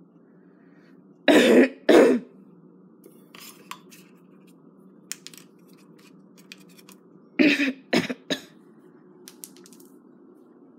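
A person coughs twice, then small clicks and taps of a toy against a little metal bowl, then two or three more coughs.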